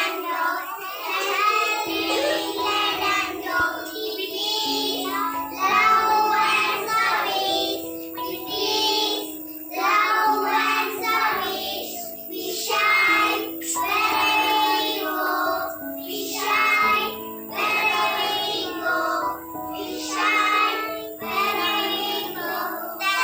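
Young children singing an action song to a musical backing, with steady accompaniment notes coming in about two seconds in.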